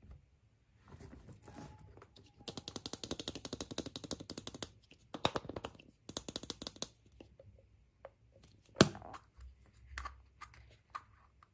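Rapid clicking and crackling from packaging being handled and opened, in two long runs of fast clicks, then one sharp snap near the end followed by scattered small clicks.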